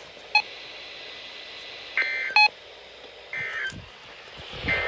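NOAA Weather Radio end-of-message SAME data bursts: three short warbling digital tone bursts, evenly spaced about a second apart, marking the end of the warning message. Brief beeps and steady radio hiss lie under them.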